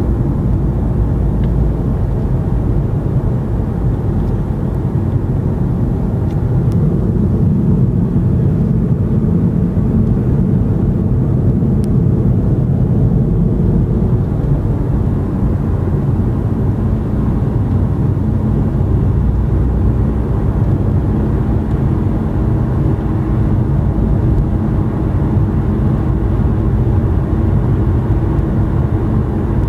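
Steady road noise heard from inside a car's cabin at highway speed: an even, low rumble of tyres and engine, a little louder from about six seconds in.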